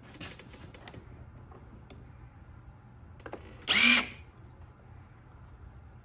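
A Power Wheels 24-volt motor and gearbox briefly whirring for about half a second, its pitch rising and falling, as its wires are touched to power to check which way it spins. Faint clicks of wire connectors being handled come before it.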